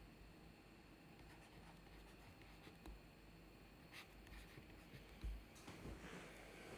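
Near silence with faint taps and scratches of a stylus writing on a pen tablet, and a low thump about five seconds in.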